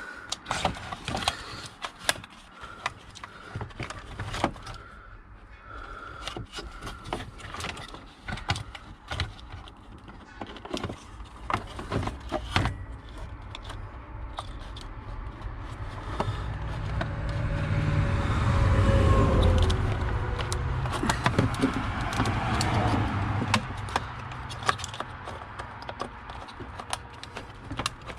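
Irregular clicks, knocks and rattles of plastic trim, connectors and wiring being handled while a Mercedes Sprinter's body control module and fuse panel are worked loose under the dash. About halfway through, a low rumble with a falling whine swells and fades over several seconds.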